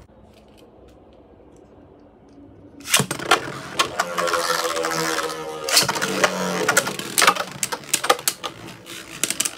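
Beyblade Burst spinning tops launched into a plastic stadium with a ripcord launcher, one about three seconds in and another near six seconds, each starting suddenly and then whirring as it spins. After that come many sharp clacks as the two tops hit each other and the stadium wall.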